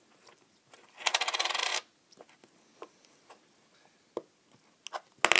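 A coin dropped onto a table, rattling for almost a second as it wobbles to rest. A few light taps follow, and another coin lands with a rattle just at the end.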